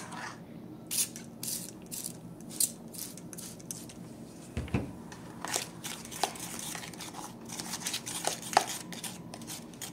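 Several quick spritzes from a trigger spray bottle of lemon juice and a metal fork stirring and scraping a damp, clumping baking-soda mixture in a plastic bowl, with a soft knock a little before the middle.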